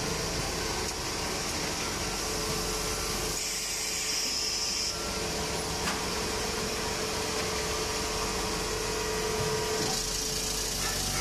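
Automatic powder bagging machine running: a steady mechanical hum with an air-like hiss from the auger filler and dust-suction system. About three and a half seconds in, a higher hiss swells for about a second and a half. A light click comes about six seconds in.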